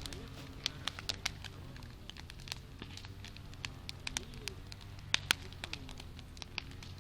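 Wood fire crackling, with irregular sharp pops and snaps, a couple of louder ones a little past five seconds in.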